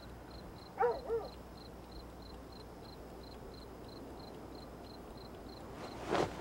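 A cricket chirping steadily, about three short high chirps a second. About a second in comes a brief two-note vocal sound, and near the end a short rustle of bedclothes.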